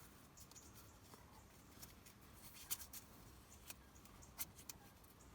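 Near silence with a few faint, sharp clicks and rustles as tape is handled and wrapped over the open end of a disconnected hydraulic line.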